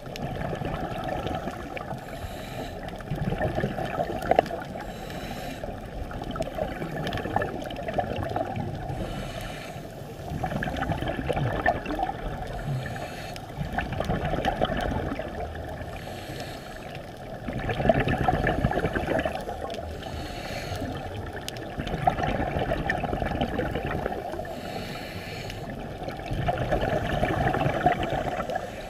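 Scuba diver's regulator breathing heard underwater: gurgling, rushing surges of exhaled bubbles swell and fade about every four seconds, with a quieter watery hiss between them.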